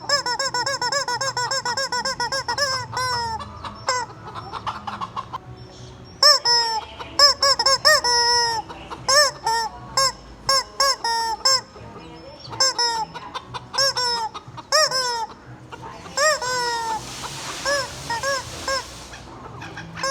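Squeaky rubber chicken toy squeezed again and again, giving short honking squeaks in quick runs of about four a second, broken by brief pauses.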